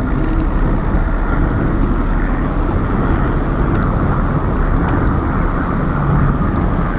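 Bass boat outboard motors running, a steady engine noise.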